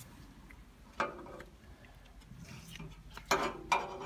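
Sharp metallic clicks and clinks of pliers working a hose clamp on a power steering hose: one click about a second in, then a quick cluster of clicks near the end.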